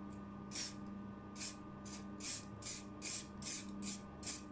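Aerosol spray can of enamel repair lacquer giving a series of short puffs, about two a second, as it is sprayed through a hole in paper onto a chipped bathtub in several light passes.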